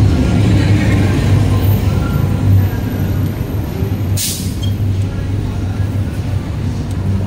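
Steady low rumble of wind on the microphone and wheels on pavement while riding a bicycle along a sidewalk, with one short hiss about four seconds in.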